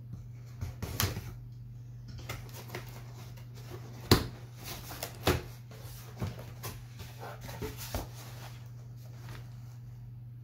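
Cardboard shipping box being opened by hand: its flaps are pulled up and folded back with scrapes, rustles and a few sharp snaps of cardboard, the loudest about four seconds in and again a second later. A steady low hum runs underneath.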